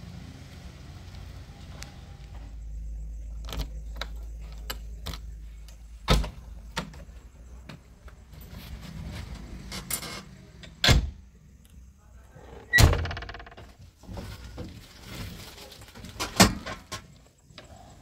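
Several sharp knocks and clunks from a JCB 3DX backhoe loader's cab door and fittings being handled as the cab door is opened and shut. One of the knocks rings on briefly like metal.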